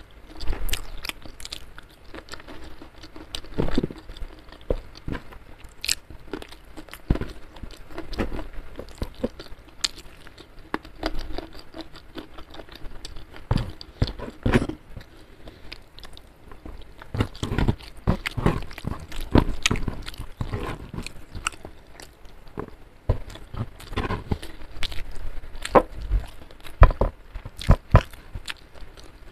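Close-miked eating sounds: irregular crunchy bites and chewing of fried chicken and raw lalapan vegetables (young eggplant) eaten by hand.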